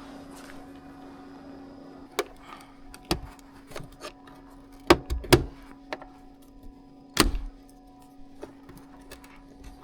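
Scattered clicks and knocks of tools and parts being handled during car interior disassembly, a handful of sharp ones with the loudest about five and seven seconds in, over a steady low hum.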